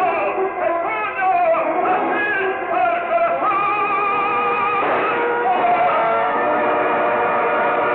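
Orchestral zarzuela music with a male operatic voice, in a muffled old recording with no treble. A long note is held around the middle.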